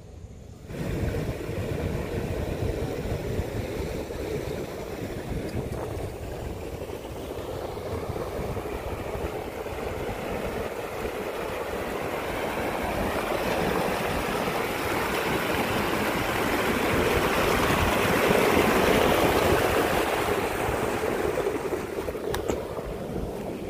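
Water rushing and churning through a narrow gap in a rock ledge, a steady rushing noise that starts suddenly about a second in and grows louder toward the last third before easing slightly.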